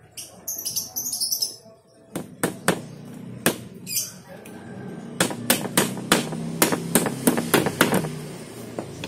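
Claw hammer striking the edge of a wooden frame to fasten plastic mesh netting to it. It opens with a light rustle as the netting is handled, then a few spaced blows, then a quick run of about four blows a second.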